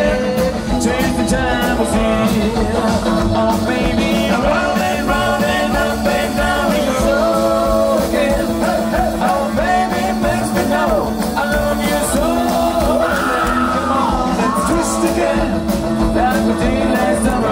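Live rock'n'roll band playing: electric guitar, upright bass and drums at a steady beat.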